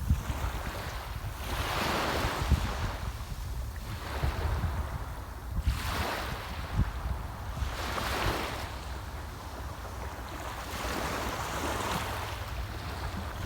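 Small sea waves washing onto the shore, the hiss swelling and fading about four times, over a steady low rumble of wind on the microphone.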